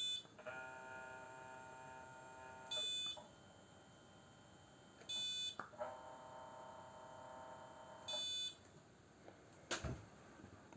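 The RA-axis motor of an iOptron CEM60 equatorial mount whirs steadily as it slews at 64x speed, in two runs of about two seconds each. The hand controller beeps sharply just before and just after each run. A single knock comes near the end.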